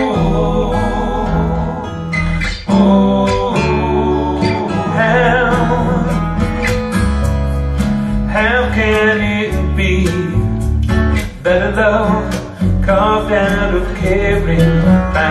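A song with singing over guitar and a steady bass line, played back through home-built three-way coaxial open-baffle loudspeakers and picked up in the room as a listening test.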